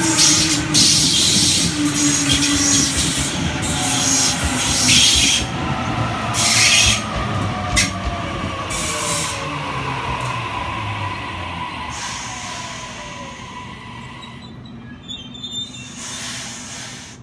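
Sydney Trains Waratah (A set) double-deck electric train braking into the platform: its traction motors whine down in pitch as it slows, with short hissing bursts. The sound fades as the train comes to a stop.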